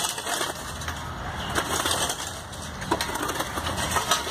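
A long-handled digging tool striking and scraping into hard, dry dirt, four strikes a little over a second apart.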